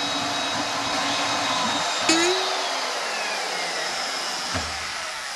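Porter-Cable 7724 variable-speed portable band saw running and cutting into the steel shank of an auger drill bit held in a vise. There is a steady motor whir and blade rasp, a sharp clank about two seconds in, then a high whine that slowly falls in pitch.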